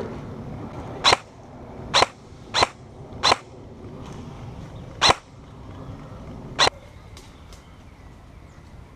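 Six short, sharp, loud reports at irregular intervals over the first seven seconds, then only low outdoor background.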